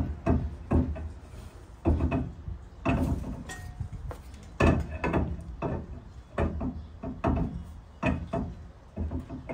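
Irregular clunks and knocks, about a dozen in all, as a rear axle shaft with its new wheel-bearing hub is slid into the axle housing and seated against the housing flange.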